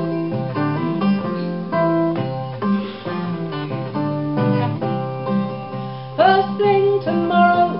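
Folk song instrumental break: acoustic guitar picking a melody, with singing coming back in about six seconds in.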